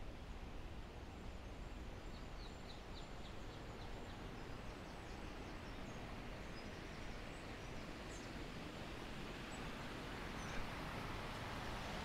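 Birds chirping faintly, with a quick run of about eight high notes a few seconds in and scattered high chirps later, over a steady outdoor hiss that swells slightly near the end.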